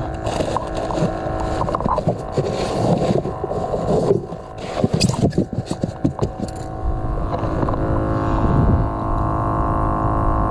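A steady engine hum made of several held tones, with scattered clicks and knocks over it for the first several seconds, then running on smoothly.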